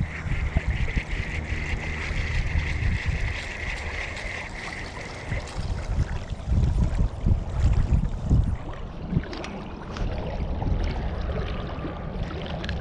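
Wind buffeting the microphone in gusts, with scattered handling knocks and clicks. A steady high-pitched hiss runs for about the first five seconds, then stops.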